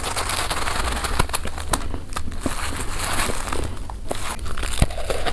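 Fluffy freezer frost being bitten and chewed close to the microphone: a dense run of crackling crunches with many sharp clicks.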